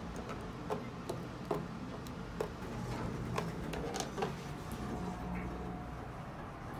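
Elevator car-panel push buttons being pressed, about ten sharp clicks over four seconds. A faint steady tone follows for about a second and a half.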